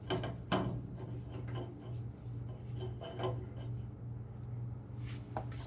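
A hand-operated siphon transfer pump and its hose being worked and handled, giving irregular short rubbing and scraping sounds over a steady low hum; no fuel is coming through.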